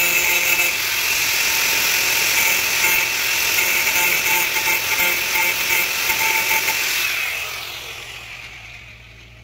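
Electric angle grinder grinding paint off a steel frame: a steady high whine over the rough rasp of the disc on metal. About seven seconds in it is switched off and the whine falls away as the disc spins down.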